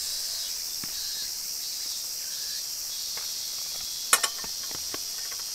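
A steady high-pitched chorus of insects in the grass, with a single sharp metallic clink about four seconds in as a steel frying pan is set down on a small camp stove, and a few faint light knocks around it.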